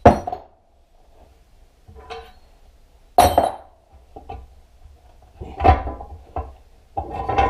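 Sharp metal clanks and knocks from parts of a Honda Magna engine being worked apart with tools, a few strong hits a couple of seconds apart with lighter knocks between, some ringing briefly.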